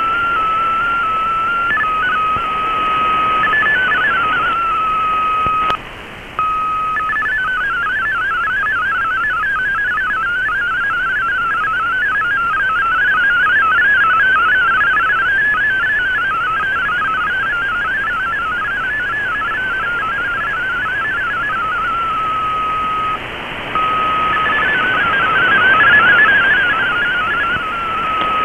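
MFSK32 digital data broadcast received over shortwave through an Icom IC-R8600: a warbling run of rapidly hopping tones over static hiss, carrying the text of the message. A single steady tone sits between blocks of data, and the signal breaks off briefly about six seconds in and again near the end.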